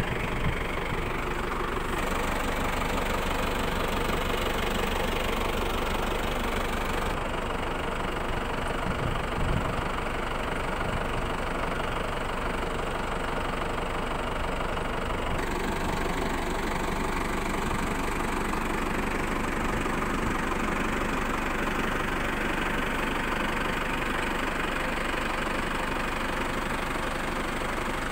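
Four-wheel-drive tractor's diesel engine running steadily at idle, heard close up.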